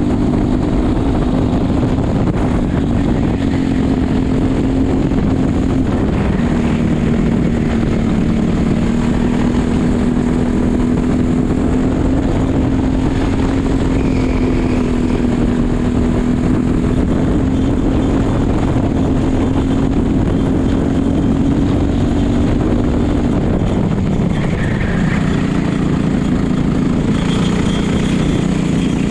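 Racing kart engine heard from on board, running hard at high revs with a steady, slightly wavering note. About 23 seconds in the note drops as the kart slows for a corner, then climbs again near the end as it accelerates out.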